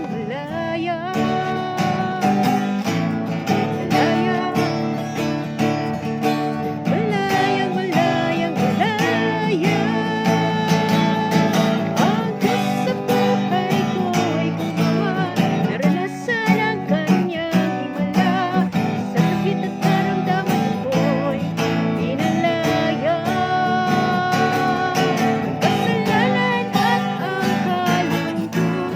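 Background music with strummed acoustic guitar and a singing voice.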